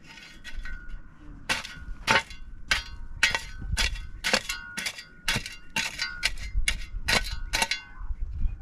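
A steel shovel blade chopping repeatedly into dry, stony ground, clanging about twice a second, each strike followed by a brief metallic ring. The strikes begin about a second and a half in.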